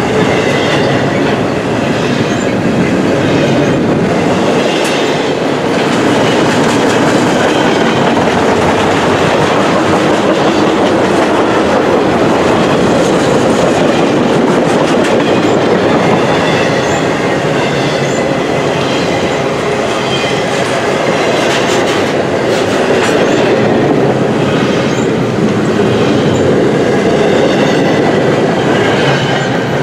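Freight cars of a fast intermodal train passing close by: a loud, steady rumble of steel wheels on rail with clickety-clack over the rail joints and a faint high wheel squeal at times.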